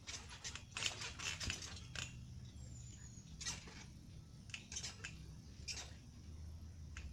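Irregular short, crisp clicks and crunches, bunched in the first second and a half and sparser after, over a faint low hum: handling noise of plastic toy figures moved on gravel.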